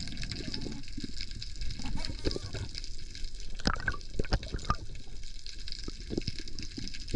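Water sloshing and bubbling around the camera, with scattered sharp clicks and knocks, several in quick succession about four seconds in.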